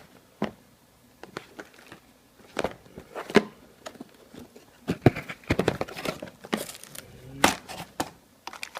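Product packaging being opened and handled: irregular crinkling and rustling of plastic and cardboard, with sharp clicks and knocks, loudest bursts a few seconds in and again near the end.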